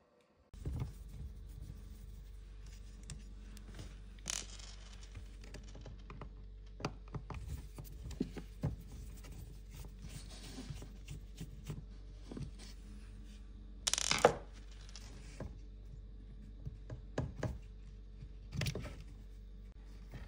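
Scattered clicks, light knocks and scrapes of hands working the temperature sensor's wiring and plastic parts on a dishwasher's pump and heater housing, over a steady low hum. A louder scraping rustle comes about fourteen seconds in, and another shorter one near the end.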